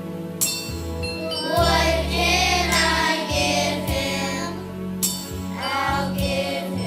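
Live gospel choir music: voices singing drawn-out, sliding melodic lines over sustained instrumental accompaniment with sharp drum or cymbal hits, in a break between the lyrics of a Christmas song.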